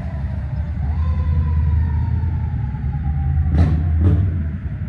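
Fire truck passing close by: a loud, steady low engine rumble with its siren tone sliding slowly down, and two short sharp sounds about half a second apart near the end.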